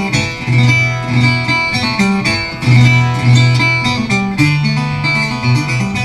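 Banjo picking an instrumental break between sung verses of an old-time song: a rapid run of plucked notes over ringing low notes, with no singing.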